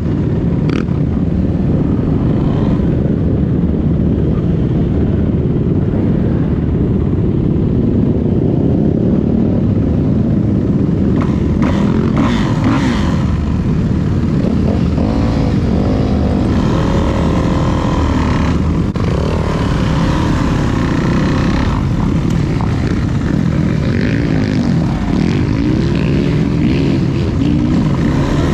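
Dirt bike engine running on a motocross track, its revs rising and falling through the middle and again near the end.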